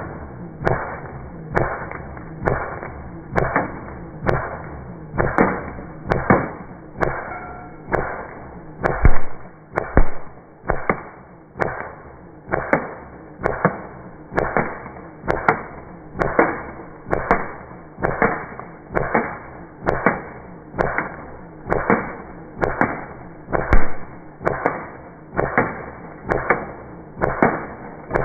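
A steady, even run of sharp whip-like cracks, a little more than one a second, each dying away quickly.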